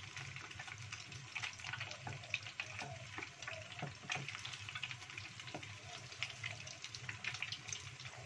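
Ingredients crackling and sizzling in hot oil in a small saucepan while a wooden spatula stirs them, with occasional knocks of the spatula against the pot. A steady low hum runs underneath.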